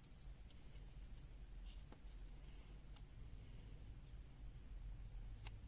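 Faint scattered clicks and ticks of small plastic parts being handled and pried at while a pen-type multimeter's casing is worked open, over a low room hum.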